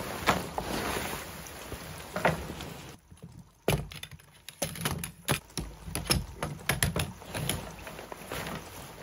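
Nylon tent fabric rustling as it is handled, then aluminium tent pole sections clacking and clicking against each other as the folded poles are unfolded and snapped together: a quick irregular run of sharp clicks and knocks in the second half.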